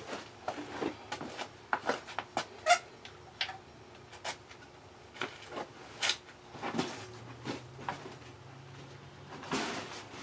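Irregular light clicks, taps and knocks of someone moving about and handling objects, with a faint low hum coming in about two-thirds of the way through.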